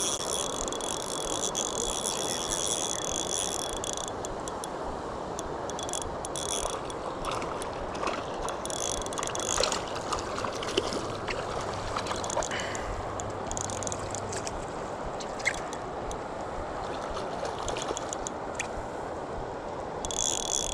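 Steady rush of river current flowing. A high, steady buzz rides over it for about the first four seconds and comes back near the end.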